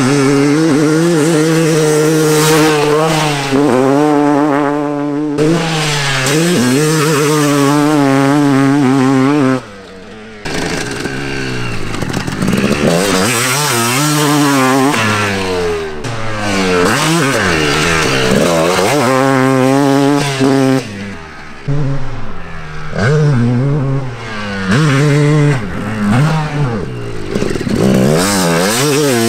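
Two-stroke Suzuki motocross bike ridden hard on a dirt track, its engine revving up and falling back again and again as the rider works the throttle through the gears and corners. The sound drops out briefly about ten seconds in.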